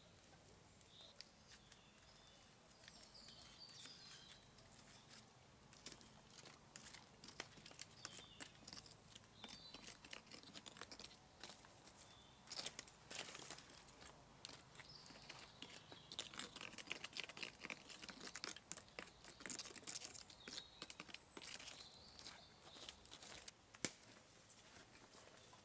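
Wood campfire embers crackling and popping quietly in irregular clicks, busier in the middle stretch, with one sharper pop near the end. Faint bird chirps in the first few seconds.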